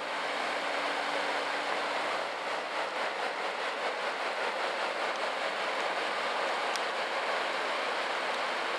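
Steady hiss of heavy rain and churning propeller wash from a push tug, with the tug's low engine hum fading away about two seconds in as the boat pulls off.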